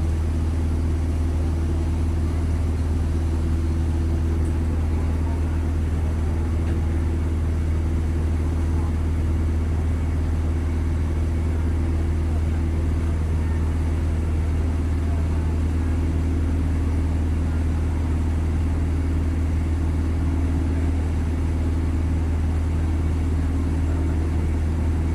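An engine running steadily: a low, unchanging hum with a few held tones above it.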